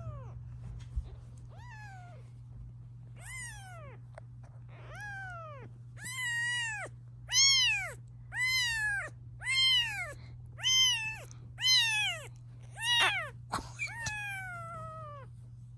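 Very young British shorthair kitten meowing over and over: about a dozen high, thin cries, each rising then falling in pitch, about one a second, louder and more regular after the first few seconds.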